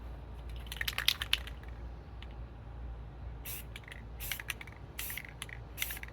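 Aerosol can of Rust-Oleum camouflage spray paint hissing in a series of short bursts as paint is sprayed in quick streaks: a few together about a second in, then several more in the second half.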